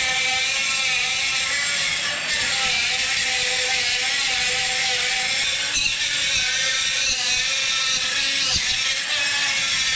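DeWalt brushless 3-inch cutoff tool cutting perforated sheet steel: a steady whine from the abrasive wheel over a hiss of grinding, its pitch wavering slightly as the wheel bites into the metal.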